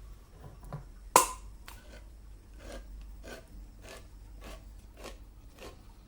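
A sharp click, then a regular run of short scraping strokes, a little under two a second, as of a household object being worked by hand.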